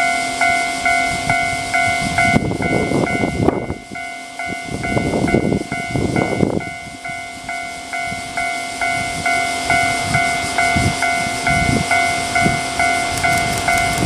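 Level-crossing warning bell ringing steadily in quick repeated strokes, about two and a half a second. A stretch of low rumbling noise comes and goes about a third of the way in, and near the end the rumble of a Keihan 2200-series electric train drawing near starts to build.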